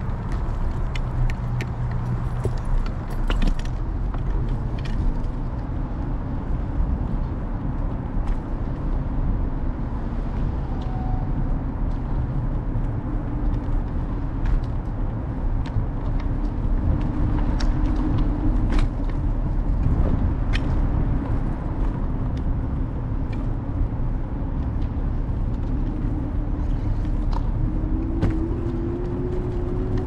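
Ride noise from a camera on the handlebars of a moving electric scooter amid city street traffic: a steady low rumble with scattered clicks and rattles from bumps, and a hum that climbs slightly in pitch near the end.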